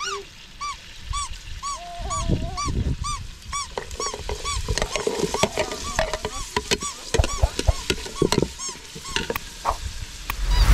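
A dog whimpering in a steady string of short, rising-and-falling whines, about three a second. Over it come clinks and scrapes of a metal ladle against a cooking pot and plate as carrots are added.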